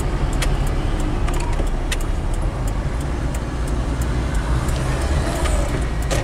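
Mitsubishi Kuda's engine, fitted with a Toyota Kijang 7K carburettor, running as heard inside the cabin while the van slows to a crawl and picks up a little again. Light clicks and rattles come at irregular moments throughout.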